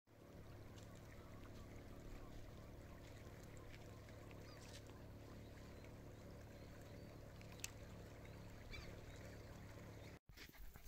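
Faint, steady low droning hum like a distant engine, with a few soft clicks and faint chirps over it.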